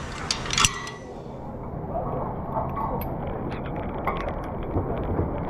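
Climbing hardware, a carabiner or hook, clinking against a metal truss tower during a climb. Two sharp clinks come in the first second, then lighter scattered ticks over a steady low noise.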